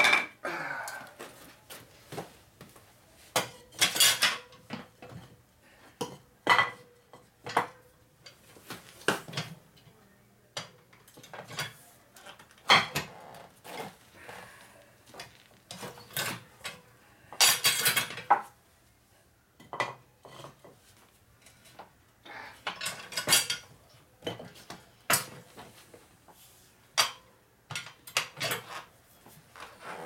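Irregular metal clanks, knocks and scrapes from a manual lever bead breaker worked against a spoked motorcycle wheel, breaking the tire bead off the rim. Several louder clanks with a short metallic ring stand out among smaller taps.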